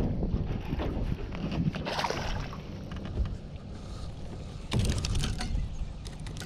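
Wind buffeting the microphone as a small bass is swung aboard a fishing boat and flops on the carpeted deck, with a sudden cluster of thumps about five seconds in.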